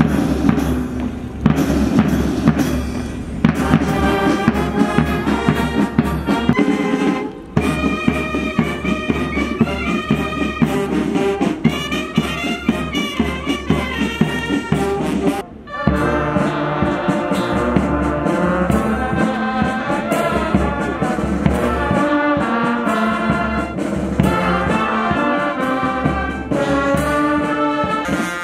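Military brass band playing a march, with trumpets over a steady drum beat; the music breaks off briefly twice, about a quarter of the way in and about halfway.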